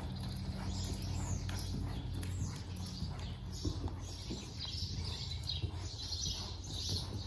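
Soft, irregular hoofbeats of a horse jogging on arena sand. Small birds chirp repeatedly, more often in the second half, over a steady low hum.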